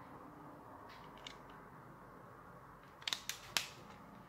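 Plastic CD jewel case being handled: quiet at first, then a few sharp plastic clicks about three seconds in.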